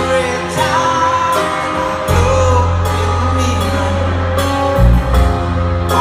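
A male lead singer sings with a live band, recorded from the audience. Drum hits and a steady bass come in about two seconds in.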